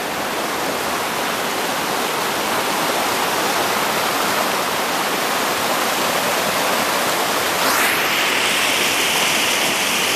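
Muddy river in flood rushing over and around boulders: a steady, loud rush of white water, turning hissier about eight seconds in.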